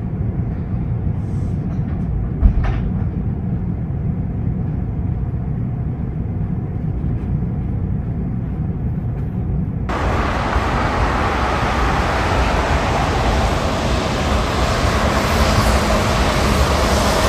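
A steady, muffled low rumble, then about ten seconds in a sudden switch to a brighter, steady rushing noise as an articulated city bus drives past on a wet road.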